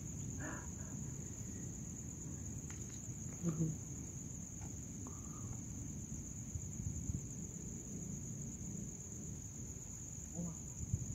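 Crickets chirring in one steady, unbroken high-pitched trill, over a low background rumble.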